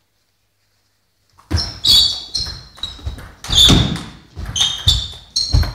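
Table tennis rally: the ball clicks off the bats and bounces on a Donic table, with a short ringing ping on each hit, about two hits a second. It starts about a second and a half in, echoing in a sports hall.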